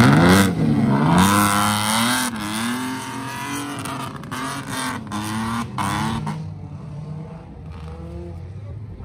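Off-road vehicle engine revving hard, its pitch rising and falling repeatedly with a few short breaks. After about six seconds it drops to quieter running.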